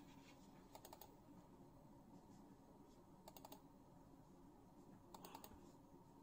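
Near silence broken by three small clusters of faint computer clicks, a couple of seconds apart, as the song is being started on the computer.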